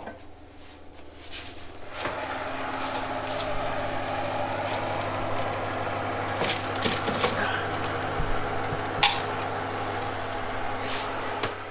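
Steady whirring and humming of a kitchen appliance's fan motor, starting about two seconds in, with a few sharp clicks and knocks over it.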